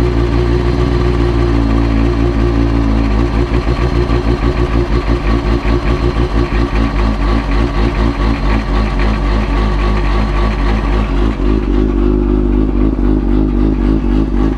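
Kawasaki ZX-6R 636 inline-four sport-bike engine running on a newly fitted exhaust, with a sound that the owner says doesn't sound good. From about three seconds in, the running turns uneven and pulsing, then smooths out again near the end.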